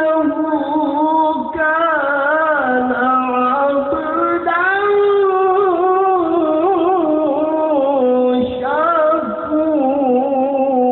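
A qari chanting Quran recitation in melodic tilawah style, stretching long wavering, ornamented notes that glide up and down in pitch, with a brief break for breath about eight seconds in before the next phrase.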